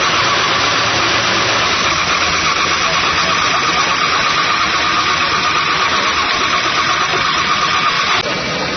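A small motor running steadily with a buzzing, fluttering noise, stopping abruptly near the end.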